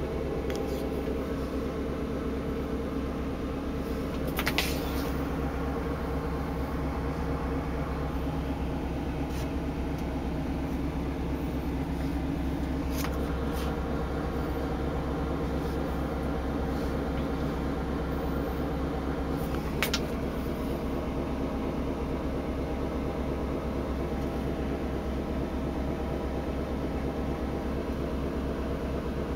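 Steady low drone of a tanker's engine and shipboard machinery, heard on board while the ship is under way. A few brief clicks sound over it.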